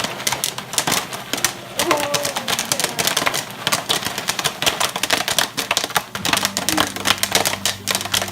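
Popcorn popping in a stovetop foil pan: dense, irregular rapid pops. A low steady hum joins about six seconds in.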